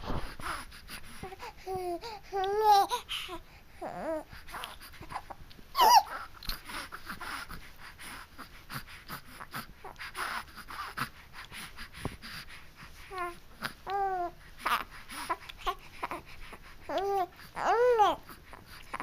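A baby babbling in short, pitched vocal sounds that rise and fall, in little clusters, with a brief high squeal about six seconds in and a couple of longer sounds near the end.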